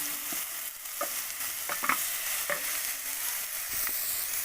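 Chicken pieces sautéing in hot oil with onion and garlic in a pot, giving a steady sizzle while they are stirred. A utensil knocks against the pot several times.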